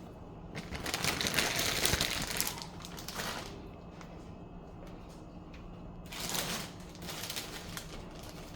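Shredded Colby Jack cheese being sprinkled by hand over taco meat on a tortilla: light rustling and crinkling with quick ticks. The longest stretch starts about half a second in and lasts nearly three seconds, with a shorter one around six seconds in.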